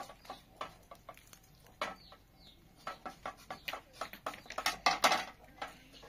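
Irregular clicks and knocks, coming thicker and louder a little before the end, with a bird chirping briefly near the middle.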